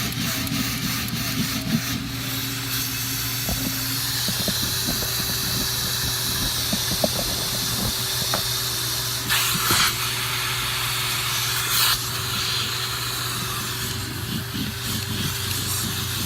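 Vacuum cleaner running steadily, a constant motor hum under air hissing through the nozzle, with scattered faint clicks and two brief louder rushes of air about nine and a half and twelve seconds in.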